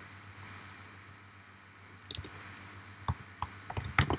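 Computer mouse clicks and keyboard keys being tapped: a quick group of clicks about two seconds in and a louder run of clicks near the end, over a faint steady hum.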